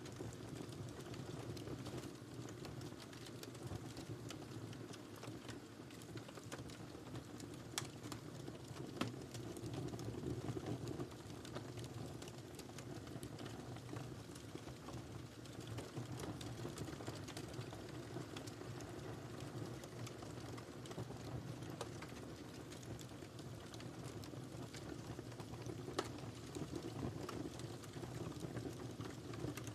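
Wood fire crackling in a fireplace: a steady low rumble of flames with scattered small crackles and snaps, and a couple of sharper pops, one about eight seconds in and one near the end.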